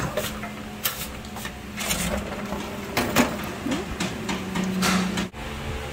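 A window being opened by hand: a string of knocks, clicks and scrapes from the frame and its latch, over a steady low hum.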